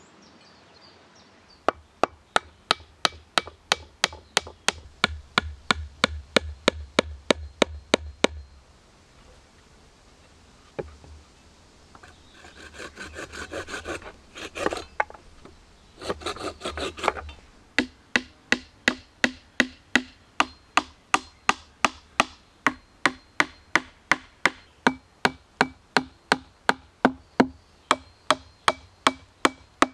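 A wooden mallet driving wooden pegs into a plank: steady, sharp wood-on-wood knocks about three to four a second, the later blows with a slight ring. In the middle come a few seconds of faster, lighter knocking and scraping.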